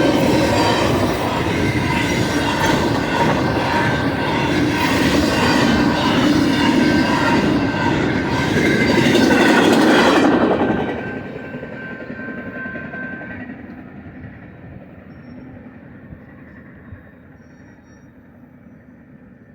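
Intermodal freight cars of a fast BNSF train rolling past with a steady rumble and a thin, steady squeal from the wheels. About ten seconds in the end of the train goes by, and the sound drops sharply and then fades as the train moves away.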